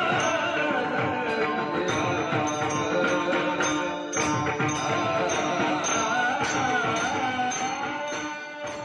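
Marathi Varkari bhajan: male voices singing a devotional melody over brass hand cymbals (taal) struck in a steady beat. The music fades out near the end.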